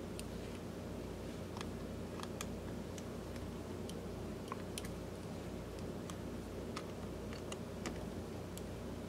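Faint, irregular light clicks and ticks of a small screwdriver and tiny screws being worked in a smartphone's frame, over a steady low hum.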